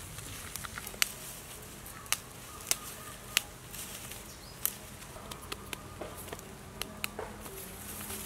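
Soil and roots crackling and snapping as freshly dug ginger rhizomes are pulled apart and cleaned of dirt by hand, with scattered sharp clicks. Insects buzz steadily behind.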